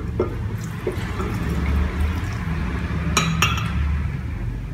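Water poured steadily from a glass mug into a blender jar of falsa berries and sugar.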